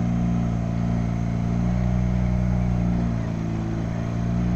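Blackpool 'Balloon' double-deck tram 715 moving slowly at close range, its electrical equipment giving a steady low hum of several even tones that dips a little about three seconds in.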